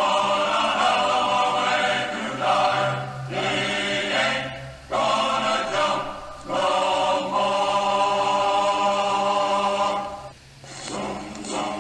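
Background music: a choir singing long held chords, with several short breaks and a deeper pause about ten seconds in.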